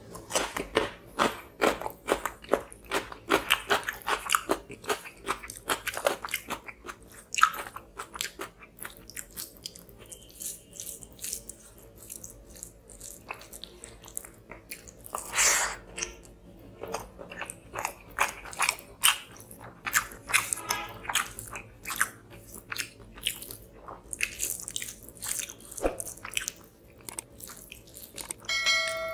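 Close-up crunching and chewing of a raw cucumber slice, dense crisp crunches for the first several seconds, then sparser chewing and wet mouth sounds. A short pitched chime sounds near the end.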